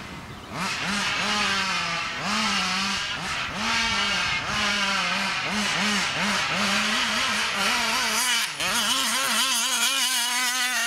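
Big-bore two-stroke petrol engine of a large-scale RC car revving up and down again and again as the throttle is worked. It drops briefly about eight and a half seconds in, then holds higher, steadier revs.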